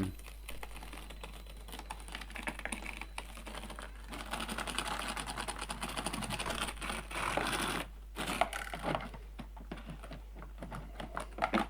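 Redcat Ascent18 1/18-scale RC crawler's small electric motor and gears running, with a dense rattle of tyres scrabbling and slipping on the steep climb. It is louder from about four seconds in and drops off to scattered clicks about eight seconds in.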